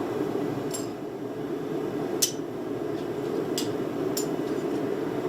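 Gas forge burner running with a steady rushing noise, with a few sharp metallic clicks over it.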